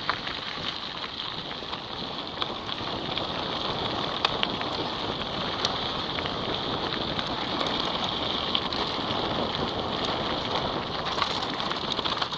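Mountain bike rolling fast downhill over a loose dirt and gravel track: a steady crunching hiss of the tyres on the grit, with scattered clicks and rattles from stones and the bike itself.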